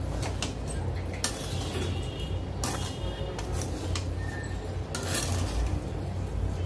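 A metal spatula stirring a dry, crumbly semolina-and-mawa filling in a pan, with irregular scrapes and clinks of metal against the pan. A steady low hum runs underneath.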